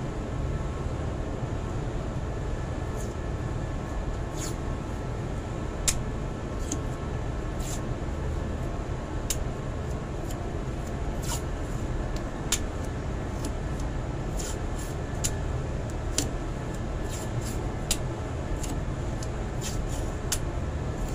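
Steady low rumble of running machinery, with scattered light clicks and taps from wiring being handled.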